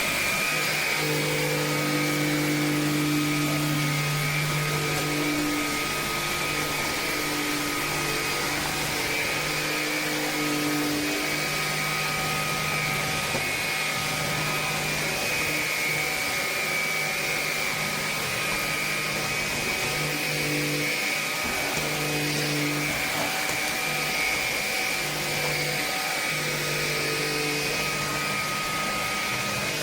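Tineco A30S cordless stick vacuum cleaner running steadily: a constant motor whine over a rushing suction noise, with a lower hum that comes and goes every few seconds.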